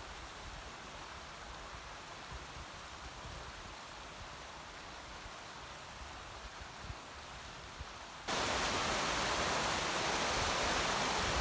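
Rushing water of a waterfall, a steady hiss. About eight seconds in it turns abruptly much louder and stays that way.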